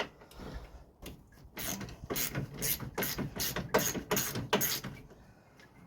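Hand ratchet wrench clicking in quick strokes, about three a second for some three seconds, as a bolt on a radiator mounting bracket is backed out.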